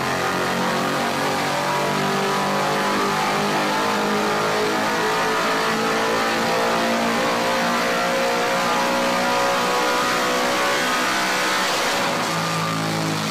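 Fox-body Ford Mustang drag car's engine running hard at high revs under load on a chassis dynamometer, a loud, steady engine note. Near the end the note changes and the revs begin to fall.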